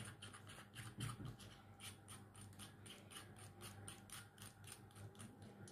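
Faint rapid, irregular clicking and scraping as the threaded battery compartment on a Boya BY-M1 lavalier microphone's cylindrical power module is unscrewed by hand.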